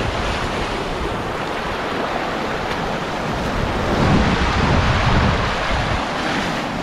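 Sea surf washing over a rocky shoreline, with strong wind buffeting the microphone. A wave surges louder about four seconds in, then eases.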